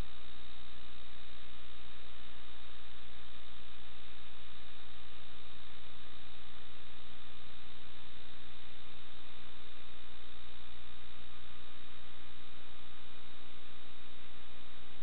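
Steady electrical hum and hiss with a few constant whining tones, unchanging throughout: the noise floor of a truck camera recorder's audio input rather than any sound of the truck itself.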